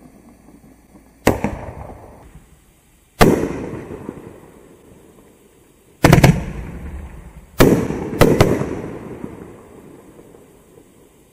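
Winda Jellyfish Aquarium 9-shot consumer firework cake firing: about six sharp bangs spaced one to three seconds apart, two of them in quick succession, each trailing off in a rolling echo.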